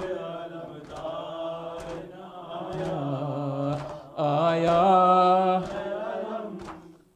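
Male voice chanting an Urdu noha, a Muharram lament, in long drawn-out phrases, louder from about four seconds in, with faint chest-beating (maatam) strokes about once a second.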